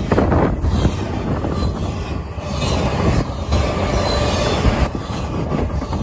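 Double-stack intermodal freight train rolling past: steel wheels rumbling and clacking along the rail as the well cars go by, with a faint thin wheel squeal about four seconds in.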